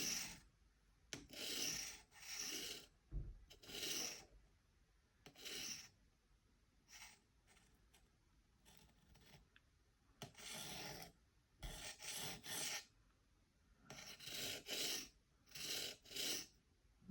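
The abrasive stone of a TSProf Kadet guided knife sharpener rasping along a pocket knife's blade in separate short strokes, about a dozen in irregular groups with pauses between them. These are trial passes while the sharpening angle is being set.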